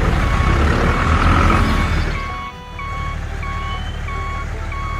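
Loud rumbling noise for about two seconds, then a steady low engine-like hum with an electronic reversing beeper sounding repeatedly, about one beep every three-quarters of a second.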